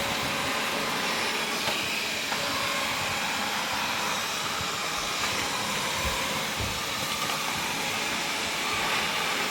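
Wyze robot vacuum cleaning at standard suction: a steady whir of suction fan and brushes, with a few faint soft knocks.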